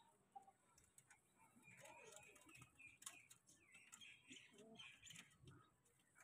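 Near silence: faint short bird chirps and a few light clicks.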